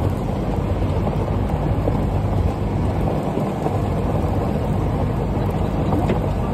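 A go-kart running steadily along a gravel drive, its motor humming under the crunch and rumble of the tyres on loose gravel.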